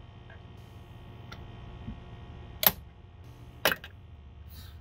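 Plastic retaining clips of a Lexus LS400's sunroof trim panel snapping out as a plastic trim tool pries the panel loose: two sharp snaps about a second apart, the second followed by a small click.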